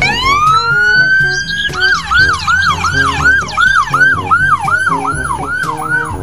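Electronic ambulance siren: it winds up in pitch over about a second and a half, then switches to a fast yelp of nearly three rising-and-falling sweeps a second, and cuts off just before the end.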